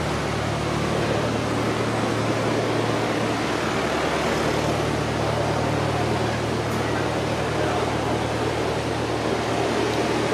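Steady, even machine-like noise with a low hum underneath, unchanging throughout.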